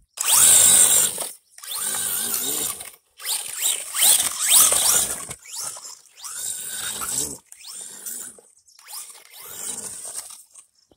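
1/16 Vatos Spirit (Q901) RC truck's 5900kv brushless motor whining in about six short full-throttle bursts with brief gaps, the pitch rising as it spins up each time, while the tyres churn and spray loose sand.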